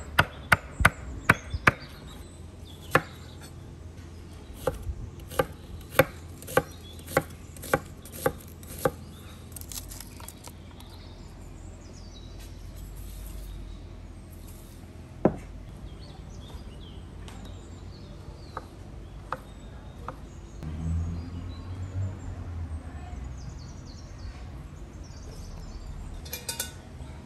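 Large kitchen knife chopping a red chili pepper on a wooden cutting board: a run of sharp knocks, about one to two a second, that stops about nine seconds in. A single knock comes again about fifteen seconds in.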